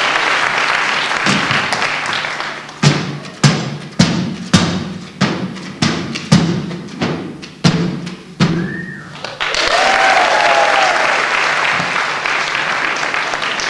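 Applause, then a quick run of about a dozen sharp thumps, roughly two a second, as flowerpots are slammed down upside down onto a table and stacked into a pyramid. Applause swells again about ten seconds in.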